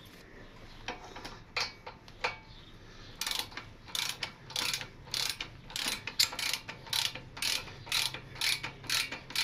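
Ratcheting torque wrench being swung back and forth to run in the front axle pinch bolt, its pawl ratcheting on each back-stroke. A few single clicks at first, then regular ratchet bursts about twice a second from about three seconds in.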